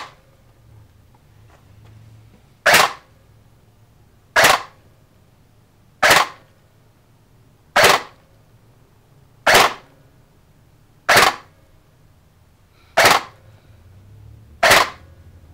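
Elite Force G36 Elite electric airsoft rifle (ARES-built, with electronic blowback, on an 11.1 V LiPo) firing single shots through a chronograph: eight sharp cracks, one about every 1.7 seconds.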